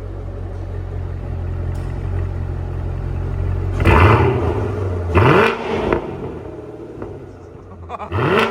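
The 6.2-litre LT1 V8 of a 2017 Corvette Stingray, breathing through a Borla ATAK cat-back exhaust, idles steadily, then is revved in three short throttle blips: about four seconds in, a second later, and near the end.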